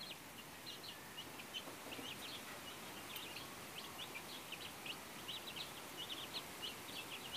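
A brood of young chicks peeping: a constant stream of short, high peeps, several a second, fairly faint.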